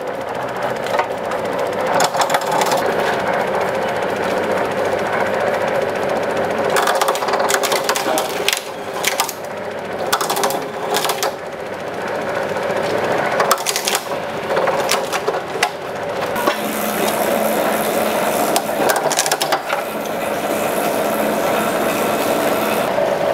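A small motor-driven machine running steadily, with sharp knocks and clicks at irregular moments, most of them in the middle stretch.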